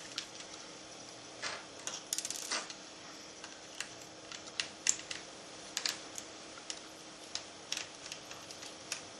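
Scattered small sharp clicks and taps, with a quick rattle of ticks about two seconds in: a size 00 Phillips screwdriver and tiny screws being worked on a Nintendo DS Lite's plastic shell.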